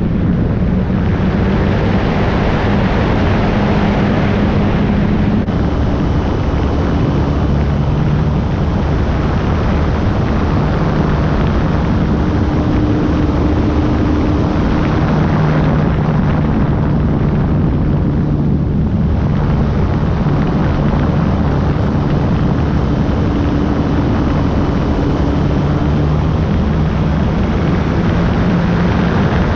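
Onboard sound of an E-flite Carbon-Z Cub SS radio-controlled plane in flight: its electric brushless motor and propeller running steadily over a rush of air noise, the motor's pitch shifting up and down several times with the throttle.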